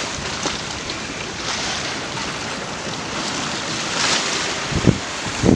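Storm surf washing and breaking in strong wind, as a loud rushing that swells and eases. Near the end, a couple of gusts thump against the microphone.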